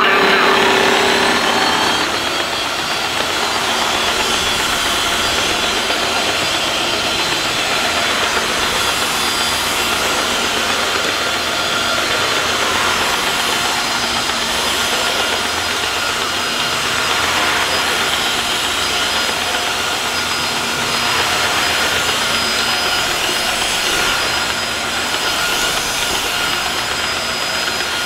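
Tineco Floor One S3 cordless wet-dry floor washer switched on and running as it washes a laminate floor: its suction motor and spinning brush roller give a steady rushing noise with a high whine over it.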